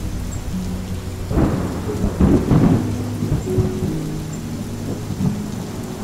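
Thunder rumbling over steady rain, the thunder loudest about one and a half to three seconds in.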